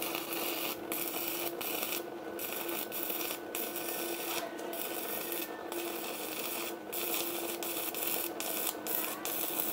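Stick-welding arc crackling and sizzling as an electrode burns on an Arc200 inverter welder, with a steady hum underneath and frequent brief breaks in the crackle. The current is set too high, which the welder calls still too much fire.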